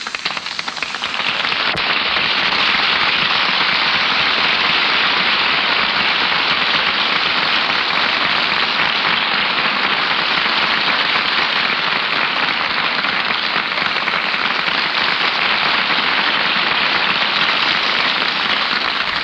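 Steady loud hiss with a fine crackle, the static of an old radio recording, swelling in about a second in and cutting off at the end.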